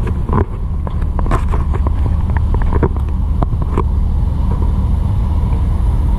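Vehicle engine running with a steady low rumble, with a scattering of short clicks and knocks over the first four seconds.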